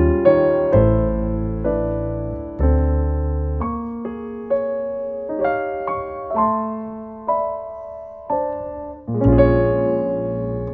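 Jazz piano playing slow chords that ring and fade. The middle of the passage thins to sparser, higher single notes, and full low chords return about nine seconds in.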